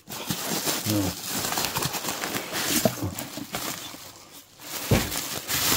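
Plastic bubble wrap crinkling and cardboard box flaps rustling as a wrapped package is handled and lifted out of its box, with a brief lull about four seconds in.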